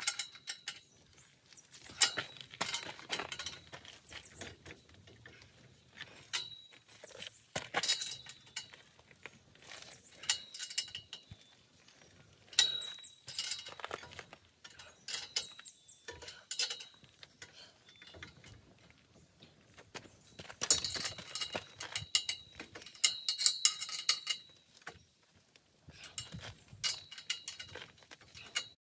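Steel scaffolding pipes and bolted swivel clamps clinking and clanking as they are handled and fitted together, in scattered clusters of sharp metal knocks, some ringing briefly. The busiest, loudest run comes about two-thirds of the way through.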